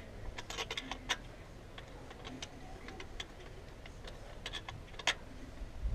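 Irregular metallic clicks and clinks of hand tools on the alternator mounting bolts of a 2004 Pontiac Grand Prix, in short scattered clusters with the sharpest click about five seconds in.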